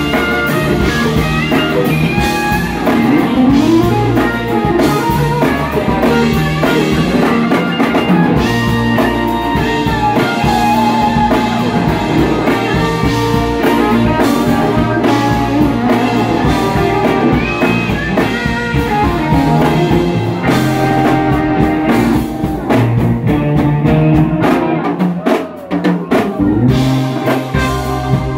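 Live rock band playing an instrumental jam: electric guitar lead lines with bent notes over bass guitar and drum kit. Near the end the bass and drums drop out for a moment, then the full band comes back in.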